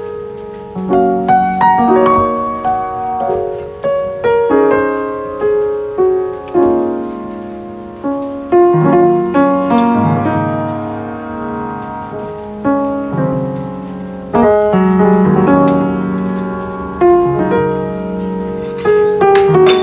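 Background piano music: a slow run of chords that strike and fade, each lasting about a second or two.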